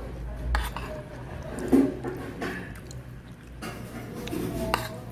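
A metal spoon scraping and clinking against a ceramic plate as rice and sauce are scooped, with a few short sharp clinks, the loudest just under two seconds in.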